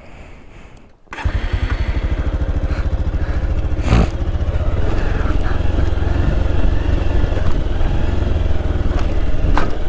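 Motorcycle engine running steadily under way on a rough stony dirt track, quieter for the first second and then loud from about a second in. A sharp knock about four seconds in and a smaller one near the end, as the bike goes over rocks.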